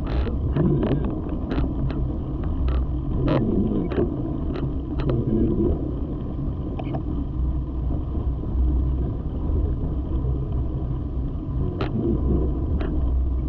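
Mountain bike riding a dirt trail, heard from the bike's camera: a steady low rumble of tyres on dirt, with sharp clicks and rattles from the bike over bumps, frequent in the first five seconds and a few more near the end.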